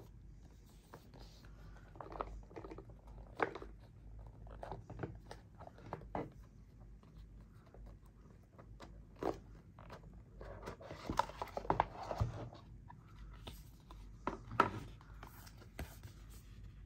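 Handling noise while unboxing a watch case: scattered irregular clicks, taps and rustles of small parts and packaging, busiest for a stretch about eleven to twelve seconds in.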